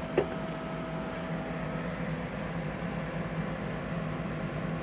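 Steady electrical hum and hiss from bench radio equipment and power supply, with one short click just after the start.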